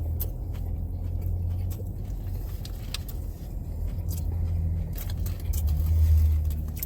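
A steady low rumble that swells about six seconds in, with scattered small crackles and clicks of someone biting into and chewing a crispy fried chicken sandwich.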